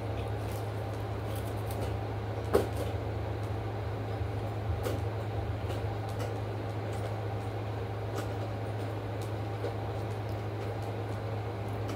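Quiet eating sounds over a steady low hum: small clicks and rustles of a plastic spoon, food wrappers and metal lap trays, with one sharper knock about two and a half seconds in.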